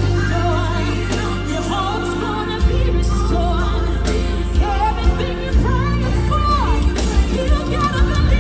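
Live gospel music: a band with heavy bass and drums plays under singing voices with wavering vibrato runs.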